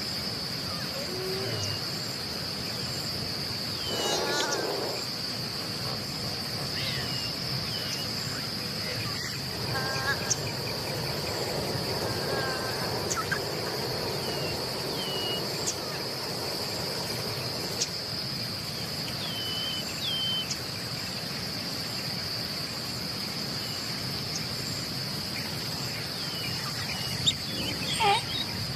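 A steady high-pitched insect drone, crickets or cicadas, fills the background, with scattered short bird chirps. A few louder pitched animal calls break in: one about four seconds in, a run of them between about ten and thirteen seconds, and more near the end.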